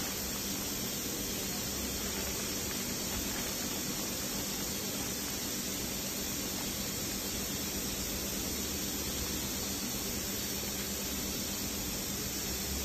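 A steady, even hiss with a faint low hum underneath, unchanging throughout, with no distinct knocks or events.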